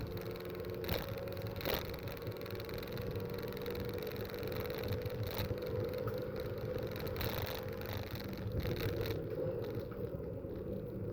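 Racing car engines running with a steady hum over a low rumble, with a few sharp knocks on the microphone about a second in.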